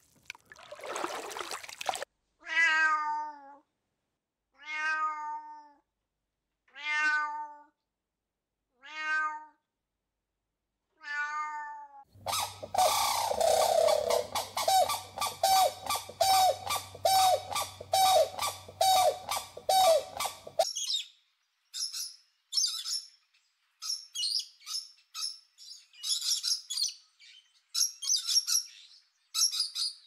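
Water splashing, then five drawn-out pitched animal calls about two seconds apart. Then a grey crowned crane's rapid run of repeated calls, about three a second, over a low hum, followed by scattered high-pitched bird chirps.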